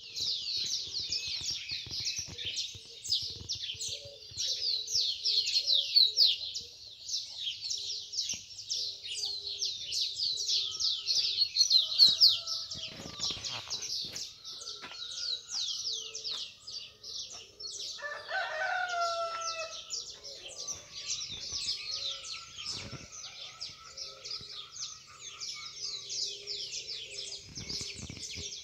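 Dawn chorus of many birds singing together: a dense, continuous mass of high chirps and trills, with scattered lower calls underneath and one louder, lower call about two-thirds of the way through.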